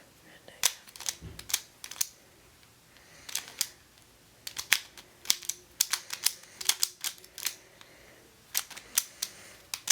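Plastic triangular twisty puzzle being turned quickly by hand: irregular sharp clicks and snaps as its layers rotate, some in quick runs of two or three.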